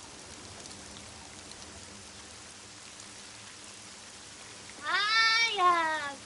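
Steady hiss of heavy rain. About five seconds in, a girl gives one long, loud cry that rises and then falls in pitch.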